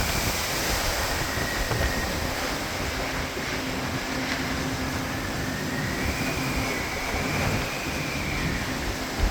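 Strong storm wind rushing steadily, with a thin whistle on the wind that wavers up and down in pitch, and a faint steady low hum underneath.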